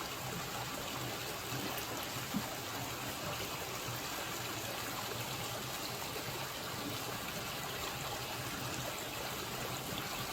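A small river flowing steadily, an even rush of water, with one faint knock a little over two seconds in.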